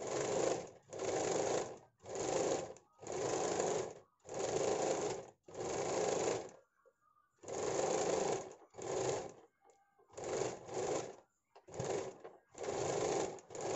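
Sewing machine stitching fabric in about a dozen short runs of roughly a second each, stopping briefly between runs as the cloth is repositioned. It is sewing a line along the lining of a blouse as a finishing seam.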